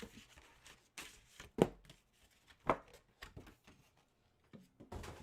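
Trading cards and pack wrappers being handled on a table: scattered light taps and clicks with brief rustling, two sharper taps about a second and a half and two and a half seconds in.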